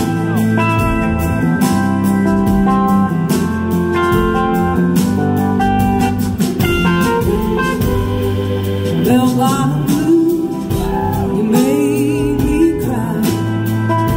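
Live band playing: electric guitars, bass guitar and drums with a steady beat, with sliding guitar lines about two-thirds of the way in.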